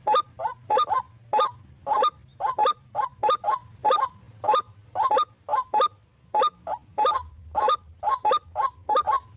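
White-breasted waterhen (ruak-ruak) calling: a rapid, repeated series of short, honking calls, often in pairs, about three a second.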